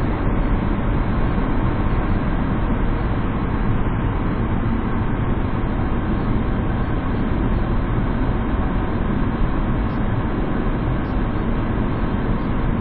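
Steady road noise of a moving car heard from inside the cabin: engine and tyres running at an even speed.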